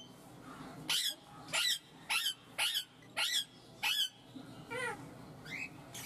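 Indian ringneck parakeet calling: six short, sharp shrieks about half a second apart, then softer, wavering calls near the end.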